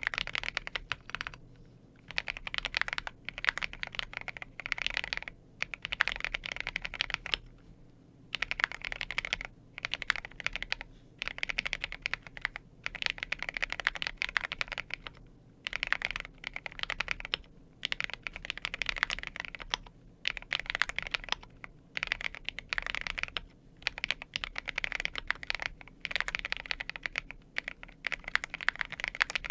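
Keychron Q8 Pro mechanical keyboard with fully lubed Akko CS Piano switches being typed on in quick runs of keystrokes, each lasting a second or two, with short pauses between them.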